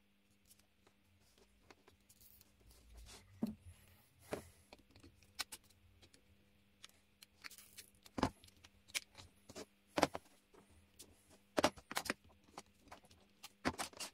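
Irregular sharp clicks and knocks of small hard objects being handled, several strong ones in the second half, over a faint steady hum.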